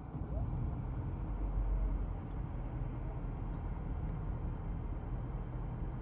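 Low, steady motor-vehicle rumble that comes up at the start and is loudest about two seconds in.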